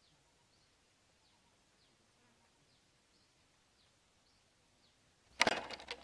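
Quiet outdoor ambience with faint, high bird chirps. About five seconds in, a sudden loud crackle of sharp snapping clicks, like dry wood or twigs breaking, that dies away within about half a second.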